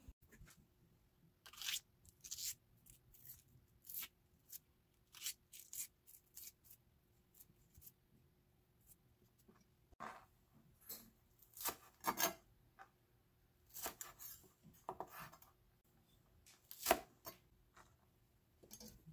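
Scattered short, crisp cutting and tapping sounds of scallions and small red chilies being cut and handled on a plastic cutting board, over a faint steady hum.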